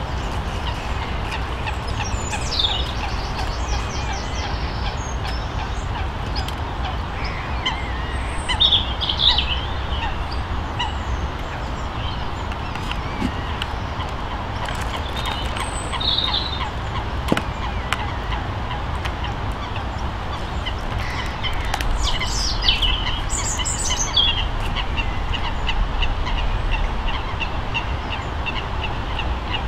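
Waterfowl calling on and off, in short clustered calls, over a steady low rumble of background noise.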